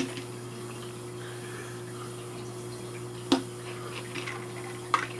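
A few sharp plastic clicks as the suction-cup base of a flexible-neck microscope stand is pressed and worked down onto a flat surface, over a steady low hum.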